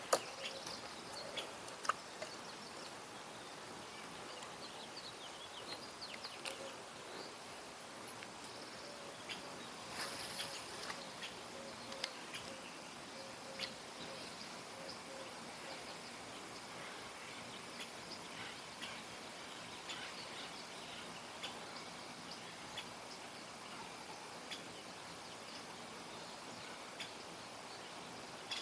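Faint outdoor ambience: a steady hiss with scattered short bird chirps and small clicks, and a brief high chirp about ten seconds in.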